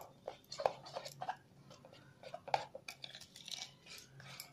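Thick gram-flour batter being stirred round in a stainless steel bowl: short wet squelches and clicks at an irregular pace.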